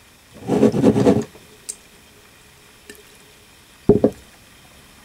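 A handful of mulberries dropped into a large glass jar of vodka, splashing and plopping into the liquid for about a second. A short sharp knock comes near the end as the glass jar is handled.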